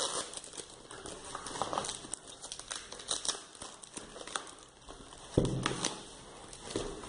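Plastic bag and foam wrapping crinkling and rustling as a small box is unwrapped by hand, with a dull thump about five seconds in.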